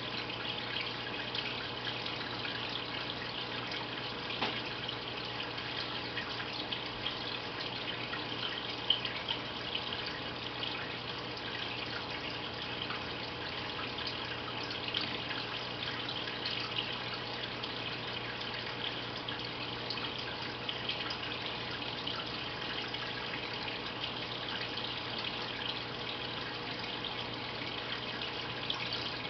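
Aquarium filter water trickling and bubbling steadily into the tank, a continuous fine crackle of small splashes over a low steady hum.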